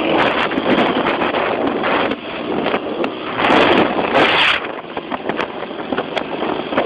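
Wind buffeting a phone microphone on a moving motorcycle, rising and falling in gusts, with the motorcycle engine running underneath.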